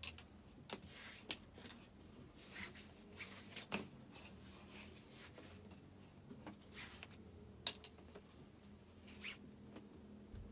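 Quiet rustling of a fabric strip being pulled and worked through the hands, with a few sharp light clicks scattered through it over a faint steady hum.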